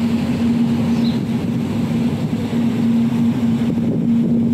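Steady low rumble with a constant low hum, an outdoor noise bed with no single event standing out.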